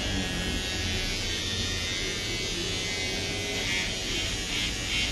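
Cordless electric hair clipper buzzing steadily as it shears through hair, with a crisper, choppy rasp over the last second or so as the blades cut.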